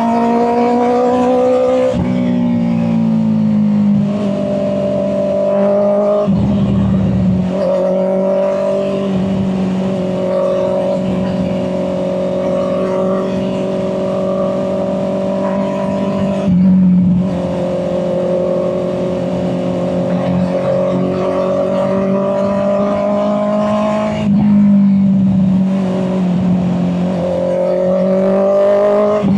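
Honda CB650R's inline-four engine running under way, its pitch holding or slowly rising and then dropping back at several brief breaks. It is picked up by a microphone carried in the rider's back pocket.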